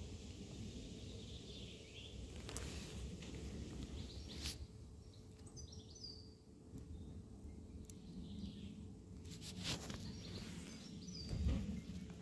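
Faint outdoor ambience: small birds chirping briefly now and then over a steady low background rumble, with a few faint clicks.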